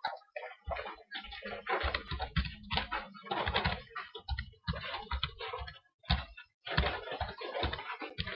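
Typing on a computer keyboard: a run of irregular key clicks with a short pause about six seconds in.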